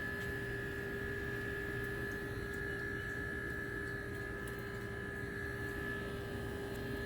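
Steady machine hum: a low rumble with two unchanging tones, one mid-pitched and one a higher whine.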